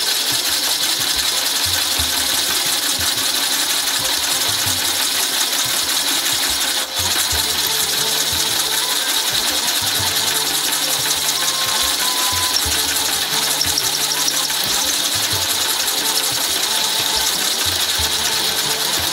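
Hand-cranked Silver drill press running at four times speed: a fast, steady mechanical whir and clatter of its gears as the twist drill bores.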